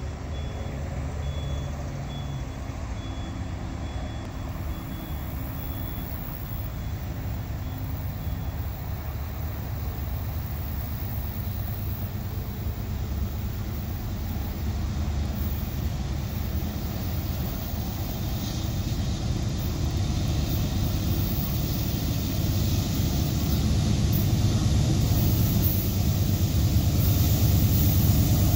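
Diesel locomotives of an approaching freight train running in the distance, a low engine drone that grows steadily louder.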